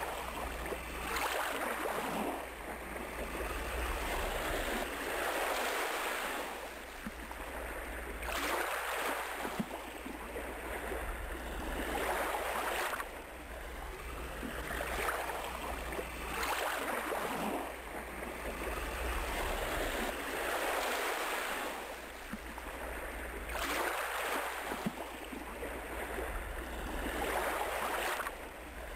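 Ocean surf: waves breaking and washing in, a swell of rushing noise every three to four seconds over a steady low rumble.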